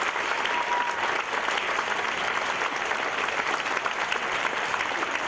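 Theatre audience and cast applauding steadily, a dense patter of many hands, with a short high call from someone in the crowd near the start.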